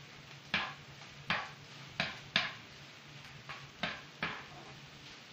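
A spoon scraping and knocking against a frying pan as vegetables are stirred, about seven sharp strokes at an uneven pace.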